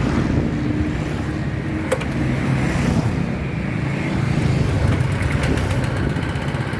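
Honda GX200 single-cylinder four-stroke engine running steadily on a walk-behind paddy tractor, driving it in forward gear. A short sharp click about two seconds in.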